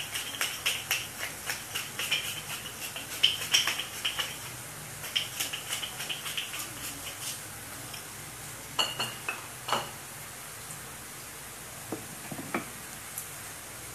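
Hand-twisted pepper mill grinding black pepper over a frying pan, a fast run of sharp clicks for about seven seconds, then a few separate clicks and knocks. Sliced onions sauté with a faint sizzle underneath.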